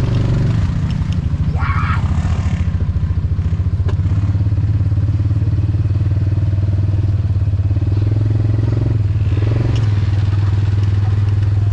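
Side-by-side UTV engine running steadily under way on a muddy trail, heard from inside the cab, its pitch dipping about half a second in and rising slightly near the end. A few short knocks and rattles come from the machine over the ruts.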